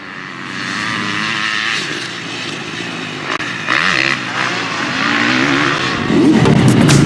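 Motocross bike engine revving up and down as the bike rides the track, fading in from quiet and growing louder.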